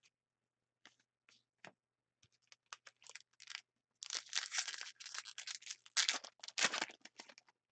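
Trading card packs and cards being handled: scattered light clicks and taps, then about four seconds in a few seconds of dense crinkling and rustling as a foil pack is torn open and the cards are slid out.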